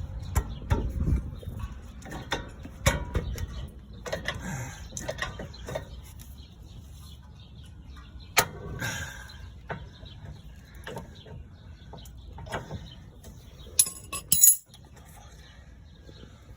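Scattered metal clinks and knocks of hand tools, with a pry bar worked against a car's CV axle joint, ending in a few louder sharp clinks about 14 seconds in.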